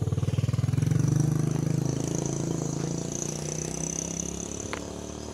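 A vehicle engine running with an even low pulse. It is loudest about a second in and then slowly fades as it moves off, with a thin high whine over it in the middle.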